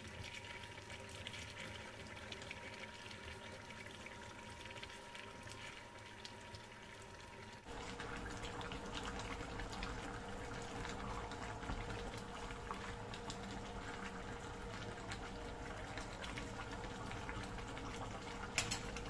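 Chicken stewing in coconut milk in a pan, a low, steady bubbling hiss of simmering liquid with a faint steady hum under it. The sound steps up a little about a third of the way through, and there are a few light clicks near the end.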